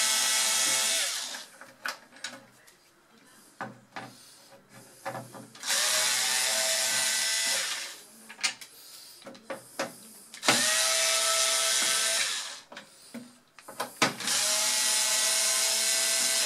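Power screwdriver with a Torx T10 bit running in steady-pitched bursts of about two seconds, backing out the case screws of a Power Mac G3 Blue & White. One run ends about a second in and three more follow, with small clicks of screws and handling in the gaps between them.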